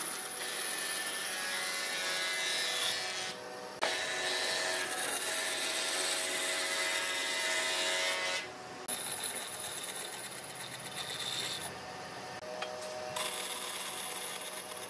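Band saw running and cutting through pine boards, the blade hissing through the wood over a steady motor tone. The cutting noise drops briefly a few times as the boards are repositioned between cuts.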